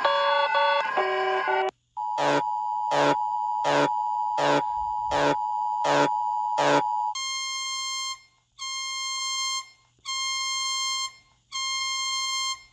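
Emergency Alert System–style alarm sequence. A short chiming melody ends, then comes the steady two-tone EAS attention signal with loud pulses about every 0.8 seconds. Near the middle it switches to a single higher tone beeping on and off four times, like a weather-radio warning tone.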